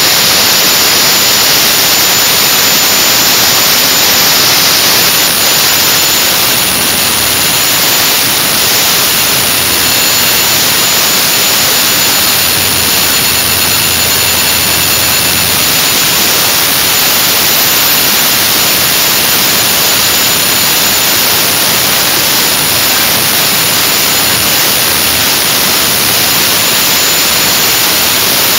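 MAN marine diesel engine running steadily at about 2240 rpm, heard as a loud, even wash of machinery noise.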